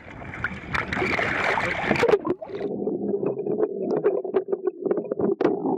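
Water slapping and wind at the surface, then, about two seconds in, the sound turns suddenly muffled as the camera goes underwater: a steady low hum with scattered bubbly clicks and pops.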